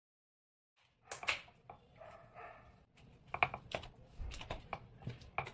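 Clicks and knocks of a steel mixer-grinder jar being handled as its plastic lid is fitted and pressed down, a string of sharp clicks starting about a second in.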